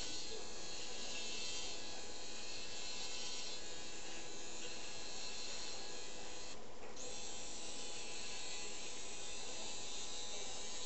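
Motorized arthroscopic burr running steadily as it grinds down bone at the femoral head-neck junction during osteochondroplasty, a steady high buzz with a brief break about two-thirds of the way through.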